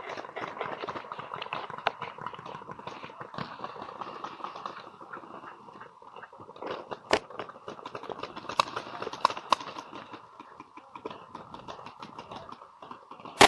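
Paintball markers firing: a handful of single sharp pops, spaced out, most of them in the second half, over a steady rustle of gear and movement.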